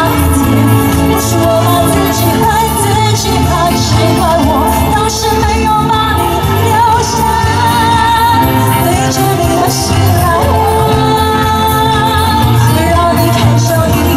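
A woman singing a pop song into a microphone over a live band with electric guitar and drums, loud through the stage speakers.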